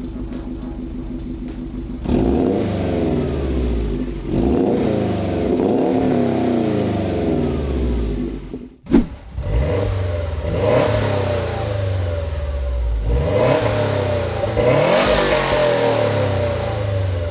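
Subaru STI's turbocharged EJ flat-four through an AWE Touring Edition catback exhaust. It idles steadily for about two seconds, then is revved again and again, its pitch rising and falling, with a sudden break about halfway through.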